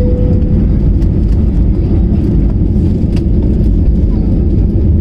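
Loud, steady low rumble inside the cabin of a Go First Airbus airliner on the runway: engine and rolling noise. A brief steady tone sounds right at the start.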